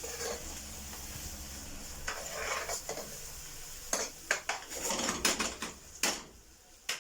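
Onions frying in oil and butter in a pan, sizzling, while a utensil stirs and scrapes them, then knocks against the pan several times in the second half.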